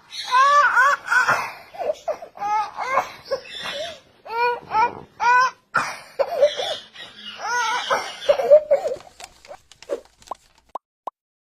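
A voice making a long run of high, laugh-like cries in short arching bursts, ending in a few brief thin chirps.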